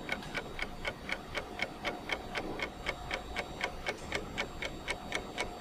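Fast, even ticking, about four ticks a second, steady throughout.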